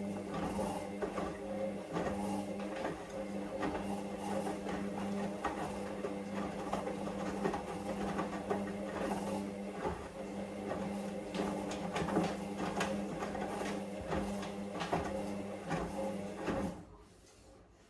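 Hoover Dynamic Vision washing machine turning its drum during the wash: a steady motor hum with the load tumbling and knocking inside. It stops near the end.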